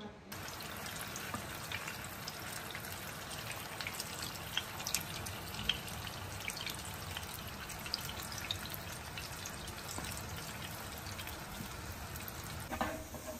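Beef-stuffed banana unnakkaya balls shallow-frying in hot oil in a non-stick pan: a steady sizzle with many small scattered crackles and pops.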